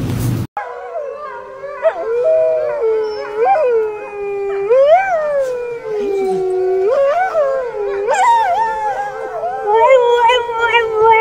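A wolf and a dog howling together in long, overlapping howls that glide up and down in pitch. The howls begin about half a second in, after a brief cut.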